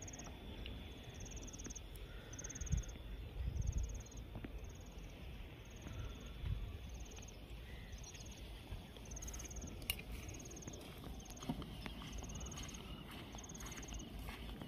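An insect chirping in short, high, pulsed trills repeated a little more than once a second, over low wind rumble on the microphone that gusts briefly a few seconds in.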